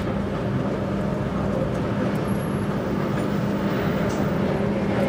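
SMW machine-room-less traction elevator running: a steady mechanical hum with a constant low drone and no change in pitch.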